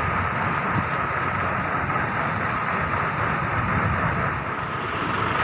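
Bus running: a steady low engine rumble with a constant faint high whine over it.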